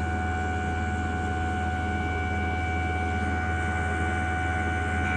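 Steady machine hum with a few constant higher whining tones, from a running Koehler automated air release value apparatus holding its oil sample at test temperature.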